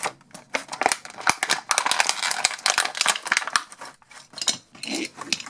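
Clear plastic blister packaging crinkling and crackling as it is pulled open and handled, with light clicks and knocks of plastic Mega Bloks pieces.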